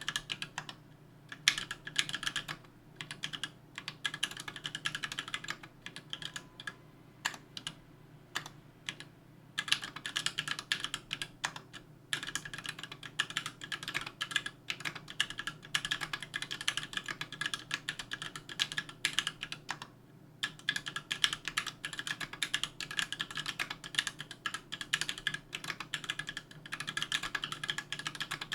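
Typing on a KBDfans Tofu 60% aluminum-case keyboard with an aluminum plate, JWK H1 linear switches (78 g) and GMK keycaps: fast, continuous keystroke clacks. The first several seconds hold scattered single keystrokes and a short lull, then steady rapid typing, with a brief pause about two-thirds of the way through.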